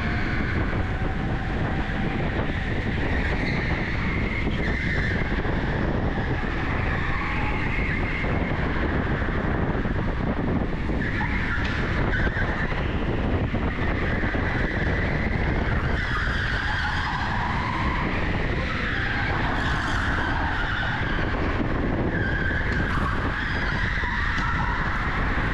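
Electric go-kart being driven on a smooth concrete indoor track, its tyres squealing again and again over a steady rumble.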